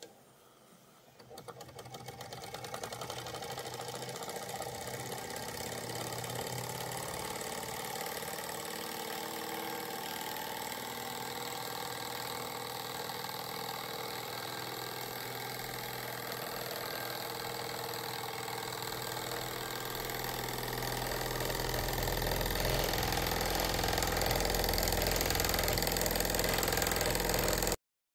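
Wilesco D14 live-steam model engine starting up just after its flywheel is turned by hand, then running steadily with a fast, even chuffing clatter. It grows louder later on, and the sound cuts off suddenly near the end.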